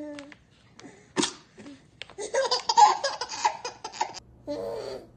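Baby laughing: a burst of hearty giggles about two seconds in that lasts about two seconds. A short vocal sound comes at the start and a short babble near the end, with a single sharp click about a second in.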